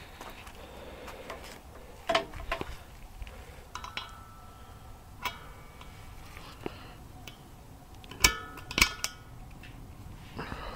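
A scattering of sharp metallic clicks and clinks from hands working on a portable generator, several with a brief ring, the two loudest coming close together near the end. The generator's engine is not running.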